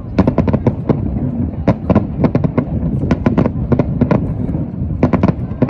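Fireworks display: shells bursting in quick clusters of sharp bangs and crackles, several a second, over a continuous low rumble.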